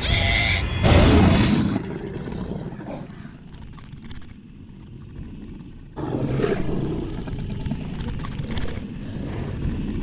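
A creature's roar and growling over a tense horror-film score, with a loud burst about a second in and another swell that starts abruptly about six seconds in.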